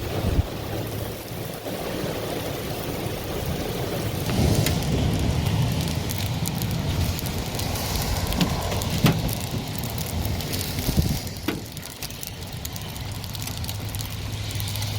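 Hail and heavy rain falling, a steady hiss broken by many sharp clicks and knocks of hailstones striking. The strikes are thickest from about four seconds in until near the end.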